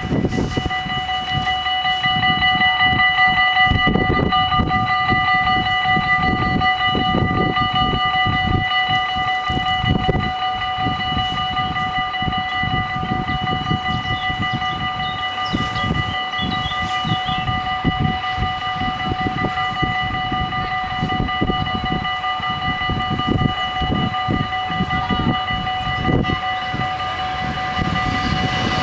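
Dutch level-crossing warning bells starting up and ringing continuously, a rapid, steady multi-tone ringing, with an irregular low rumble underneath.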